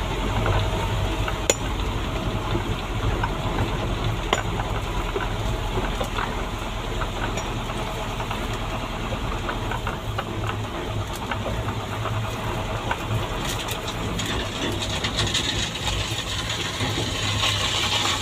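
Truck's diesel engine running steadily, heard from inside the cab while the truck creeps over rough quarry ground, with cab rattles and a few sharp knocks. A rougher rattling hiss builds from about two-thirds of the way through.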